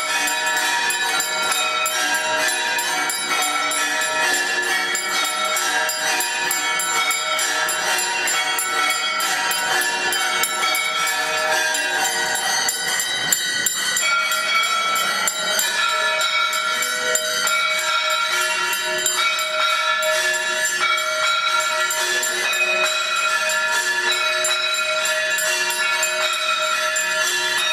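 Temple bells and small jingling bells rung without a break for Hindu aarti worship, a dense, loud ringing.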